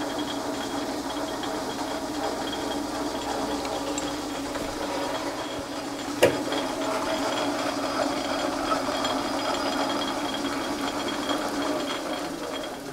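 Metal lathe running steadily while a twist drill in the tailstock chuck bores into the spinning metal workpiece, with one sharp click about six seconds in. The lathe begins to wind down near the end.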